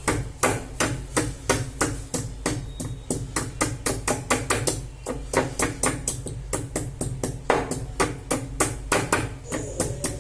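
A pestle pounding fresh ginger in a mortar, crushing it to a paste: steady, even strokes about three a second.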